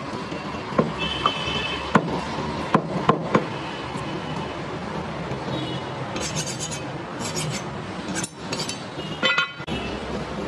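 A heavy butcher's knife chopping goat meat on a wooden chopping block: about five sharp knocks in the first three and a half seconds, over steady background noise. Later come a few short high-pitched rattling bursts.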